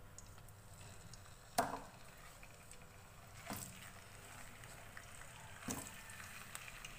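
Raw bone-in chicken pieces dropped into oil in a nonstick wok: three soft, wet thuds about two seconds apart, the first the loudest, over faint background hiss.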